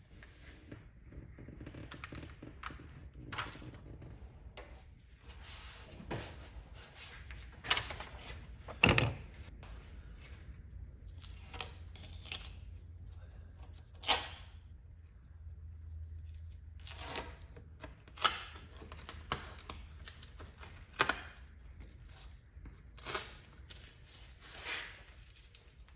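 Scattered rustles, taps and short knocks from gloved hands handling masking tape and a decal and pressing the decal onto a lawn tractor's fender. The loudest knock comes about nine seconds in.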